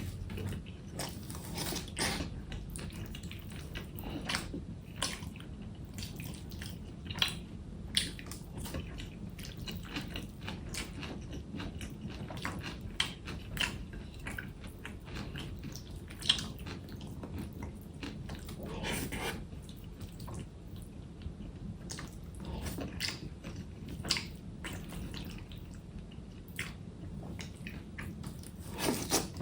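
A person eating close to the microphone, chewing and biting with irregular wet smacks and clicks. A few sharper clicks stand out.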